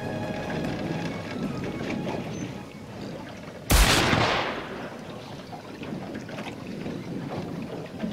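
Wind and sea noise on a small boat, broken about four seconds in by one sudden loud crash-like burst that dies away over about a second.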